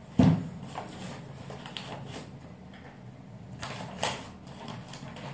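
Handling noises in a small room: a loud low thump just after the start, a sharper knock about four seconds in, and small clicks and rustles between.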